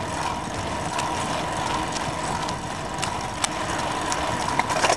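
Riding noise from a bicycle rolling along a road, heard through a camera taped to the bike: a steady rushing of tyres and wind, with a few scattered clicks and rattles from the bike.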